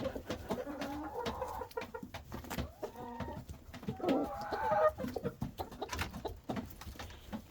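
Domestic chickens clucking, with drawn-out wavering calls about a second in and again around four seconds, among scattered small clicks.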